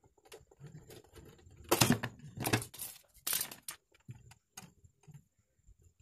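Hand-work on a refrigerator's copper refrigerant tubing at the compressor: small metallic clicks and clinks of tube and tool, with three louder, noisier handling sounds of a fraction of a second each about two to three and a half seconds in.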